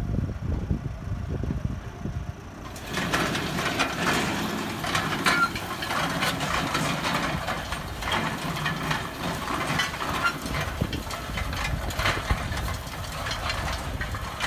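Tractor engine running under load as it pulls an Erdem inter-row corn cultivator through the soil, joined about three seconds in by a steady clatter and rattle of the cultivator's tines and frame.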